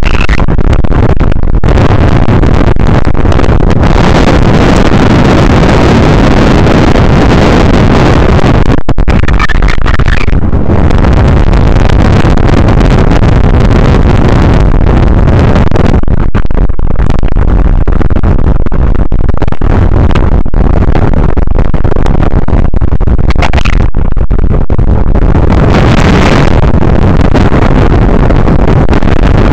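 Strong wind blasting the microphone, a loud, constant, distorted rumble, mixed with the wash of rough water.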